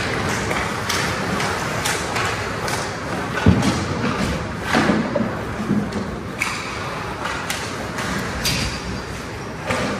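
Ice hockey play echoing in a rink: skates scraping the ice and sticks and puck clacking, with a heavy thud about three and a half seconds in and a few more knocks just after.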